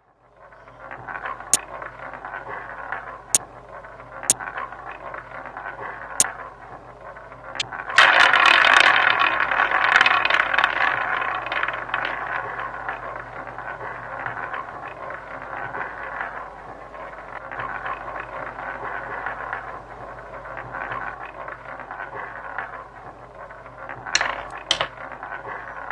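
Online roulette game sound effects. A handful of sharp clicks come as chips are placed on the table, then about eight seconds in the wheel spins and the ball rolls with a loud rattling whir that slowly fades. A couple of sharp ticks near the end are the ball dropping into a pocket.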